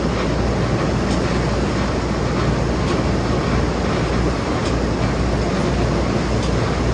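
French fries production line machinery running, with a stainless-steel potato washing machine and its spray nozzles and rollers in operation: a steady, loud mechanical rumble with faint ticks about once a second.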